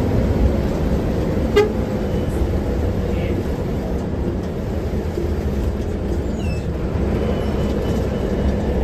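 Hino AK8 bus under way, heard from inside the cabin: steady diesel engine and road noise, with one short knock about a second and a half in.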